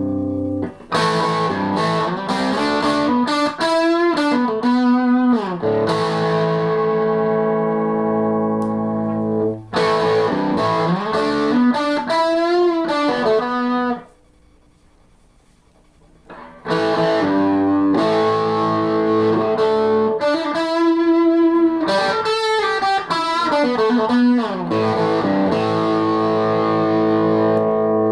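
Electric guitar (Tagima T-635 with Seymour Duncan pickups) played through a Murbach Effects Full-Drive II overdrive, a Fulldrive clone, into a Borne Clássico T7 amp: distorted chords rung out and held, with bent lead notes. It plays in two phrases with a short stop about halfway through.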